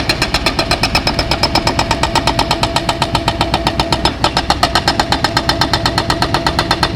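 Excavator-mounted hydraulic breaker hammering at a fast, even rate of about eight blows a second, over the steady running of the machine's engine.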